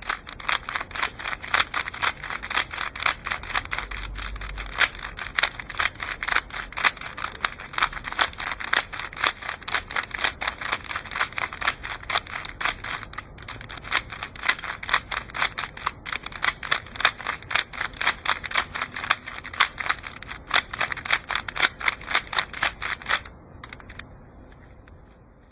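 Plastic Rubik's Cube faces being twisted over and over in a fast, steady rhythm of clicks, about four a second, which stop suddenly near the end.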